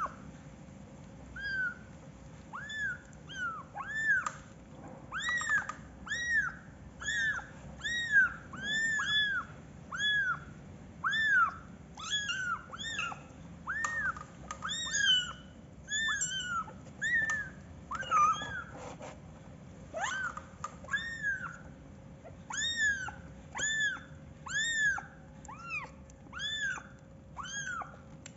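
Young kittens mewing over and over in short, high-pitched, arching cries, about one or two a second, with a few brief knocks in between.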